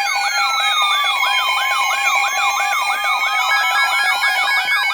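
Several electronic siren and alert tones layered together: a fast yelping siren sweep repeating about three times a second, slower wailing glides, and steady tones underneath.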